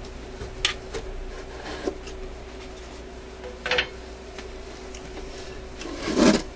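Light knocks and clicks from the changer board of an Admiral suitcase record player being tilted up out of its case by hand, with a louder rustle near the end, over a faint steady hum.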